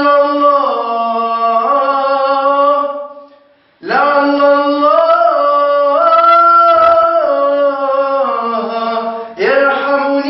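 Unaccompanied Arabic nasheed singing: a voice holds long, drawn-out notes with no instruments. It breaks off briefly about three and a half seconds in, then resumes, and a new phrase begins near the end.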